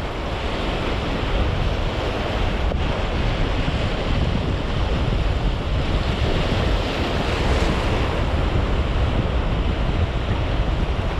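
Small waves washing and breaking over a rocky shore, with wind buffeting the microphone in a steady low rumble.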